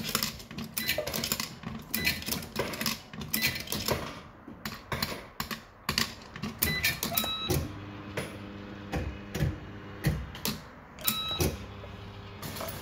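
Bell-Fruit Firecracker fruit machine clicking and rattling as coins go through its coin mechanism with the coin tube full, with short electronic beeps and a steadier mechanical buzz later on, and the reels spinning near the end.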